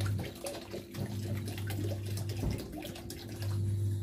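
Water pouring from a plastic bottle into a metal wok, splashing steadily.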